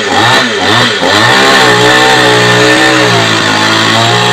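Petrol chainsaw cutting into a dry wooden post: the engine revs up and down a few times, then from about a second and a half in is held steady at high revs.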